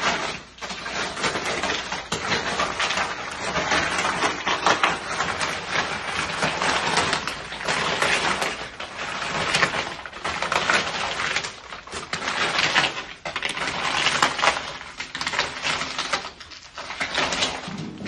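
Loose gravel crunching and crackling under the wheels of a power wheelchair as it drives across a gravel bed. The sound swells and eases in uneven waves, with short lulls now and then.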